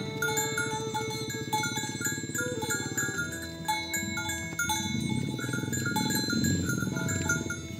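Background music with a chiming mallet melody, over low, drawn-out cow mooing.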